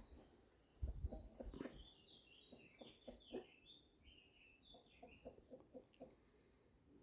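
Chickens clucking softly in short quiet bursts, with high chirping calls mixed in.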